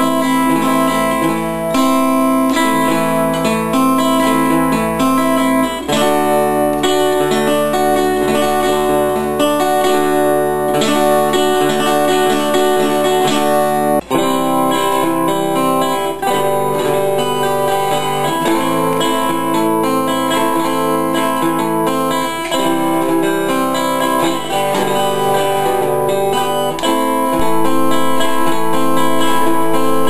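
Layered guitars playing an original riff-based instrumental: a strummed guitar part over pre-recorded background guitar riffs, with a momentary dropout about halfway through.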